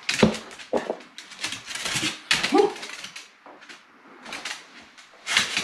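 Pembroke Welsh Corgi scrambling and leaping on a tile floor, claws clicking and scrabbling on the tiles, with a few short whimpers. It settles briefly about three seconds in, then scrambles again near the end.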